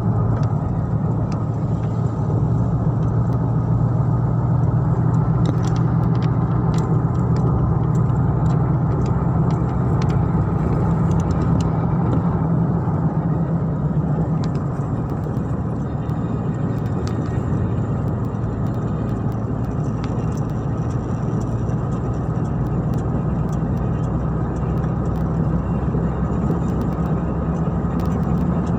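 Steady low drone of a moving car's engine and tyres heard from inside the cabin, with faint clicks now and then.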